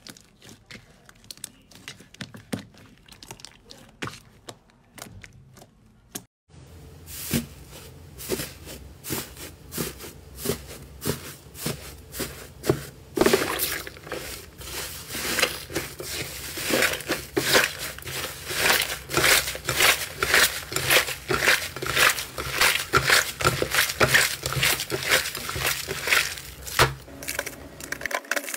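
Hands kneading glossy purple slime, with soft sticky clicks. After a cut about six seconds in, hands squeeze and tear a flaky grey slime, making dense crackling and popping that gets louder from about halfway through.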